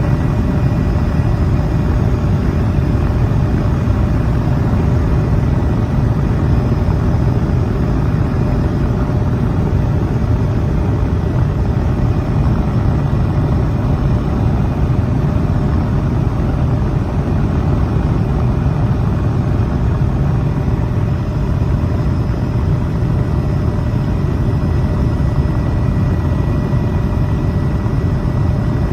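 Steady, loud, low engine drone that does not change, with a few faint steady whining tones above it.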